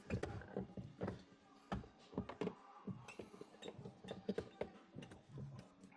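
Scattered light clicks and taps of a screwdriver, magnet and small screw against the plastic trim of a car door as a screw is worked out.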